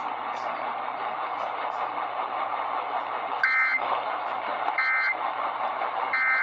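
Emergency Alert System end-of-message data: three short bursts of warbling SAME data tones about a second and a half apart, starting midway through, received over AM radio static with a low hum.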